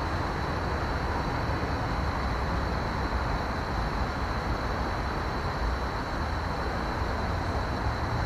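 Steady, continuous traffic noise from the elevated highway bridges, an even rush with no single vehicle standing out.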